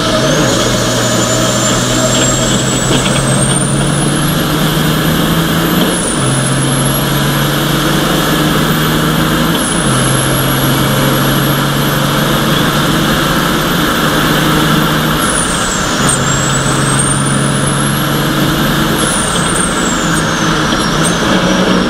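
Ford Copa Truck race truck's diesel engine heard from inside the cab, pulling hard through the gears. A high whine climbs with the revs and drops sharply at each upshift, about six, ten and fifteen seconds in, then rises once more and falls away near the end.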